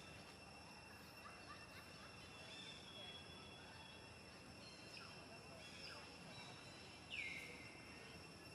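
Faint outdoor ambience: a steady high insect drone with scattered short chirps. A single louder, high call drops in pitch and then holds, about seven seconds in.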